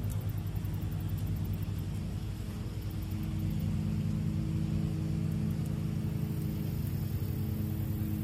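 Lawn mower engine running steadily while mowing overgrown grass, its tone shifting slightly and growing a little stronger about three seconds in.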